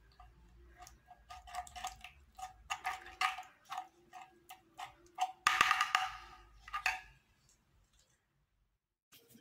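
Metal spoon clinking and scraping against the sides of an earthenware tajine while stirring thick tomato sauce: a run of quick irregular taps, with one longer, louder scrape about five and a half seconds in.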